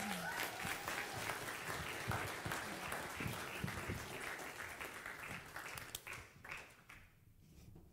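Congregation applauding, the clapping thinning out to a few scattered claps and dying away about six to seven seconds in.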